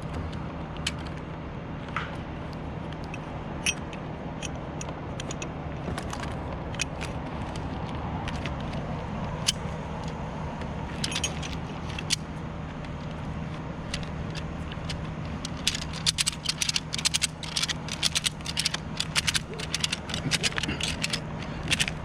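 Bucket truck engine running steadily, with scattered metallic clicks and rattles from strap or rope rigging being handled. The clicking comes thick and fast over the last several seconds.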